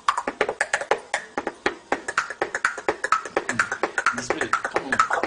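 A boy beatboxing: a fast, steady run of mouth clicks and pops, with short voiced sounds mixed in.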